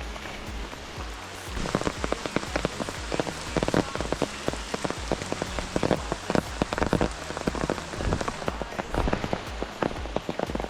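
Rain falling, with a steady hiss and, from about a second and a half in, many sharp irregular taps of heavy drops striking close to the microphone.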